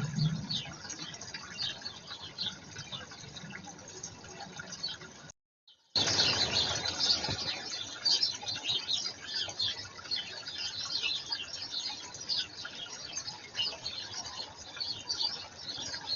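Small garden birds chirping again and again over a steady background hiss. The sound drops out completely for about half a second about five seconds in, then comes back louder.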